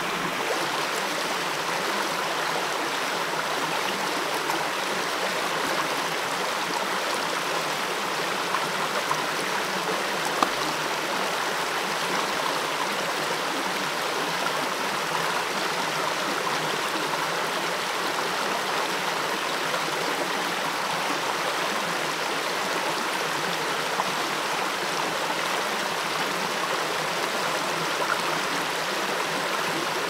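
Shallow rocky mountain stream flowing over stones, a steady rushing. A few light taps come through around ten seconds in.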